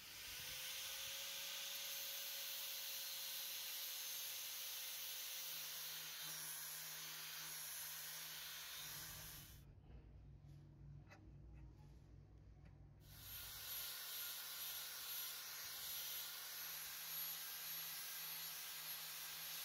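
Angle grinder grinding a steel knife blade: a steady hiss of the disc on the metal. It stops for about three seconds near the middle, then starts again.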